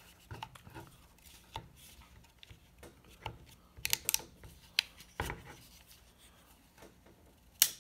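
Small clicks and rubbing from an HK SP5 polymer trigger housing and its safety selector being handled as the selector is pushed in against its detent. There is a knock about five seconds in and a sharp click near the end.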